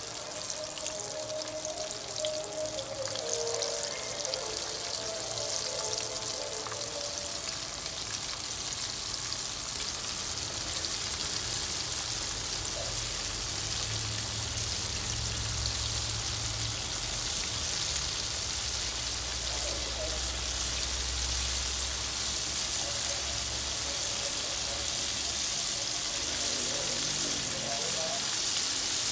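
Hot oil sizzling steadily as breaded chicken strips deep-fry in a kadai, growing slightly louder over time, with soft background music.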